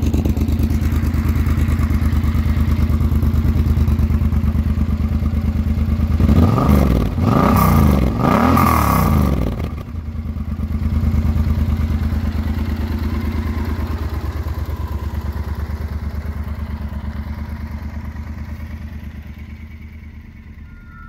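2011 Yamaha XT1200Z Super Ténéré's 1200 cc parallel-twin engine idling through an aftermarket GPR exhaust, blipped three times about six seconds in, then settling back to a steady idle that grows fainter toward the end. The exhaust note is deep, likened to a V8.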